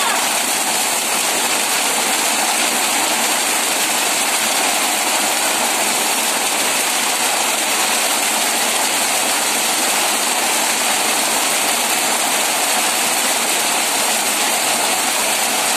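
Heavy rain pouring onto a flooded yard, drops splashing into standing water as a steady, even hiss.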